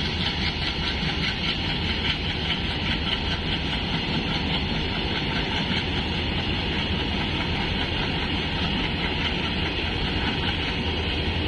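Covered goods wagons of a freight train rolling past close by: a steady noise of wheels on rail with a fast rattling clatter, strongest in the first half, over a low steady engine drone.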